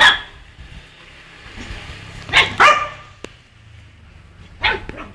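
Miniature pinscher barking: four sharp barks, one at the start, two in quick succession about two and a half seconds in, and one near the end, with a short click between them.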